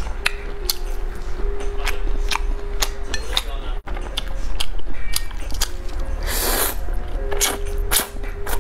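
Close-miked eating sounds from a person eating instant noodles: repeated wet mouth clicks and smacks of chewing, with a louder slurp of noodles about six and a half seconds in.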